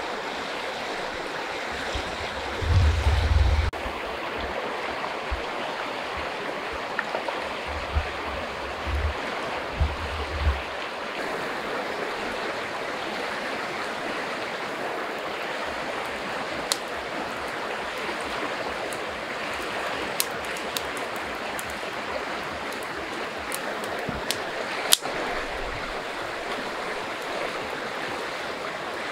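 Steady rush of flowing river water, with a few low thumps in the first ten seconds and scattered sharp clicks in the second half.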